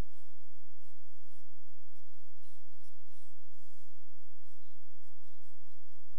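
Faint, short, irregular scratchy strokes of a pen stylus drawing on a graphics tablet, over a steady low electrical hum.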